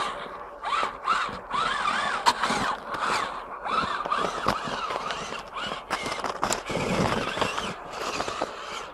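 Electric motor and geared drivetrain of a Traxxas Summit RC monster truck, whining up and down in pitch over and over as the throttle is blipped, with the tyres churning and scraping through snow.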